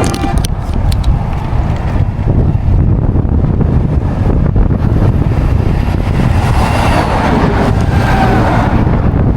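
Strong wind rumbling and buffeting on the microphone, with a motor vehicle passing on the road, its engine and tyre sound rising and bending in pitch near the end.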